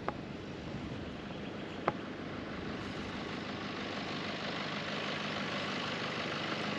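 Steady rushing outdoor background noise, growing slightly louder, with a sharp click about two seconds in.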